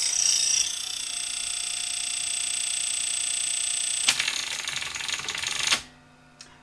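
1978 RCA VCT-200 VCR's tape transport running in play: a steady high whine with several constant tones. About four seconds in, it turns into a rapid, dense clicking for under two seconds and then stops suddenly, as the E6000-glued plastic drive gear breaks again and its teeth skip.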